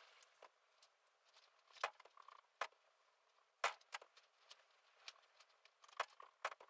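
Light clicks and knocks, a second or so apart at irregular intervals, with faint scraping between: small objects being handled.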